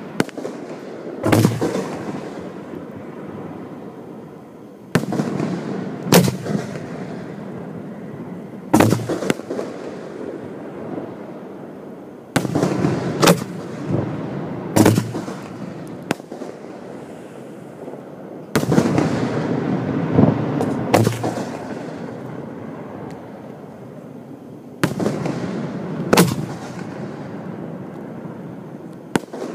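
Aerial firework shells fired at close range: sharp booms every few seconds, many in pairs about a second apart, each trailed by a rumbling echo.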